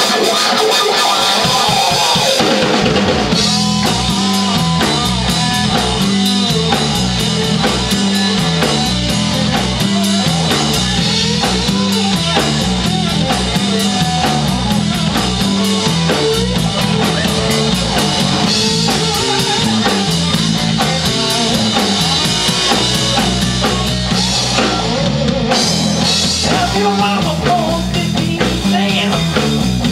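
Live rock band playing, with electric guitar, electric bass and drum kit. The bass and drums come in about two to three seconds in, and the cymbals drop out briefly near the end.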